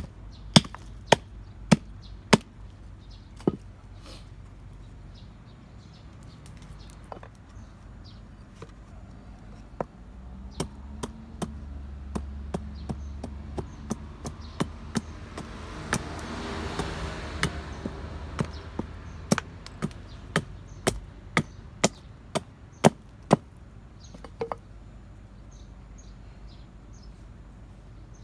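Hatchet chopping down the end of an upright wooden stick on a log block to shape a point: sharp wooden chops, a quick run of them at first, then more, irregularly spaced, in two later series, stopping a few seconds before the end. A soft rushing noise swells briefly in the middle.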